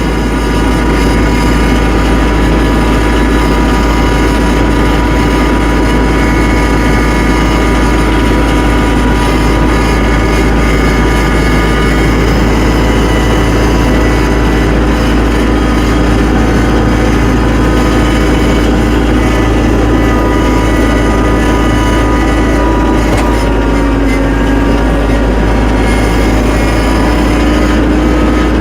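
Tractor engine running steadily while driving, its note dipping briefly about three-quarters of the way through and then picking back up.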